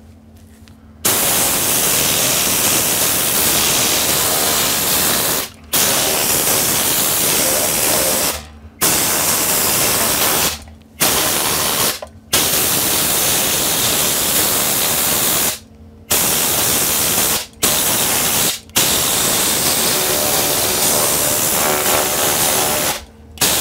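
Tornador compressed-air cleaning gun blasting air in about nine loud hissing bursts of one to four seconds each, with short pauses between, blowing dust and cigarette residue off an amplifier's circuit board.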